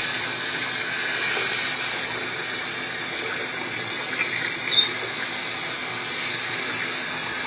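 Kitchen tap running steadily into a stainless steel sink, the water splashing over a puppy's wet coat as it is rinsed by hand. There is a brief high squeak about five seconds in.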